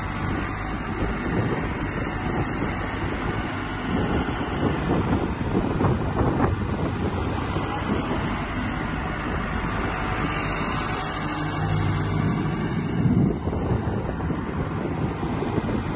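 Hyundai Robex 140LC-9A crawler excavator's diesel engine idling steadily, a low hum that does not change.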